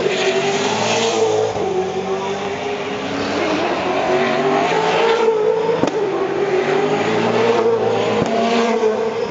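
V8 Supercars' V8 engines at racing revs as the cars run past on the circuit, loud and continuous, the engine note wavering up and down as they pass and change gear.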